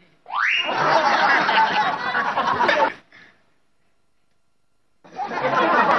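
Audience laughter in two bursts: the first begins just after the start with a short rising tone and cuts off sharply after about two and a half seconds, and the second starts near the end after a gap of about two seconds.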